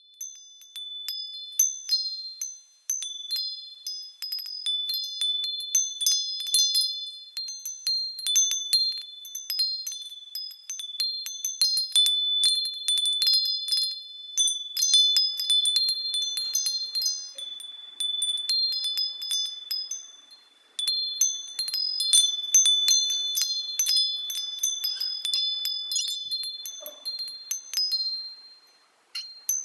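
Chime-like ringing at a few high, fixed pitches, the tones overlapping and sustaining, mixed with many light ticks; the sound briefly stops about 3 s and 20 s in.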